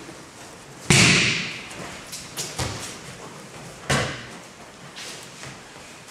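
Thrown martial-arts students landing in breakfalls on the dojo mat: a loud slap and thud about a second in, then further thuds a little before three seconds and at about four seconds.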